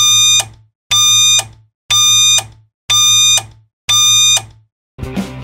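Film-leader countdown beeps: a buzzy electronic tone, one short beep a second, five times. A brief burst of noise follows near the end.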